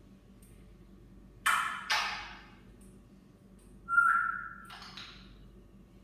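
African grey parrot calling: two short, noisy squawks about a second and a half in, then a steady one-note whistle about four seconds in that runs straight into another short squawk.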